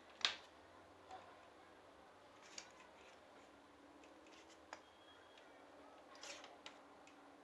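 Mostly near silence with a few light clicks and handling noises from a coffee maker's solenoid water pump being taken apart by hand as its plastic tube is worked out of the coil. The sharpest click comes just after the start, and a short cluster of small clicks comes near the end.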